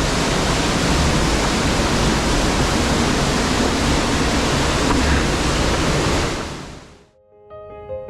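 Water of a mountain waterfall and its creek rushing steadily, a dense even hiss that fades out near the end.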